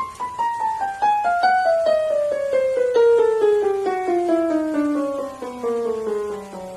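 Yamaha Piaggero NP30 76-key portable keyboard playing a long descending run of notes in a piano-like voice, stepping down at about four to five notes a second. In the second half the run is played in two parts moving down together.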